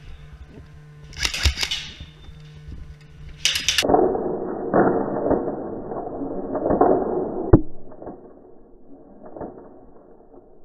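Two short bursts of rapid airsoft rifle fire, the second shorter. After them comes a muffled stretch of noise with a few knocks, loudest in the middle, that fades out near the end.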